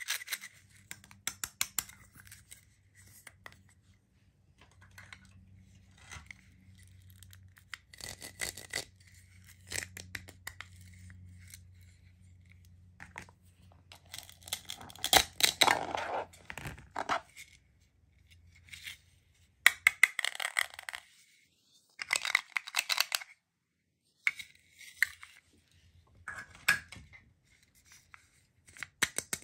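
Toy plastic play food being pulled apart and cut with a toy knife: hook-and-loop (velcro) joints tearing open in short rips, with clicks and taps of hard plastic pieces and the knife on a plastic cutting board. The loudest rip comes about halfway through.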